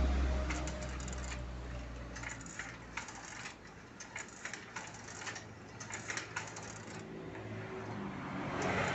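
Steel linkage of a hand-built manual rice transplanter being worked by hand: scattered light metallic clicks and rattles from the seed-pusher arms and their pivots. A low rumble fades out over the first two seconds.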